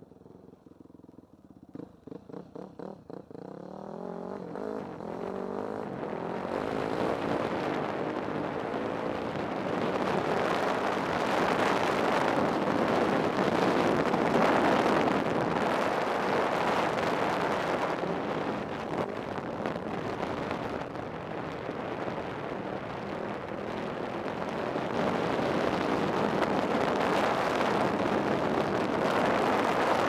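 Off-road vehicle engine picking up speed along a gravel dirt trail: a low engine note rising in pitch during the first few seconds, then a loud rushing of engine, tyres and air that swells, eases a little past the middle and builds again near the end.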